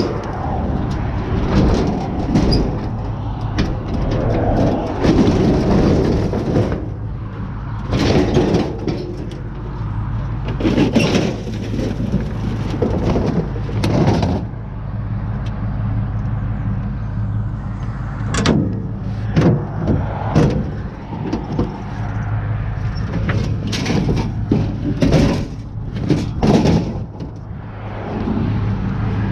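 A vehicle engine running steadily underneath, with repeated knocks and clanks scattered through as scrap is handled.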